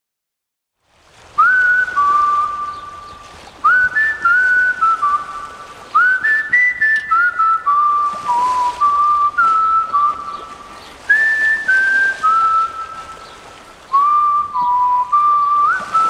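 Outro music carried by a whistled melody: after about a second of silence, phrases of clear held notes, each note starting with a small upward slide, over a soft hissy backing.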